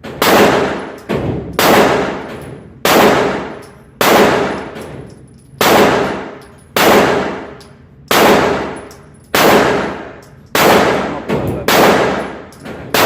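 Gunshots fired one after another at a steady pace, about ten in all, each cracking sharply and ringing on in a long echoing decay.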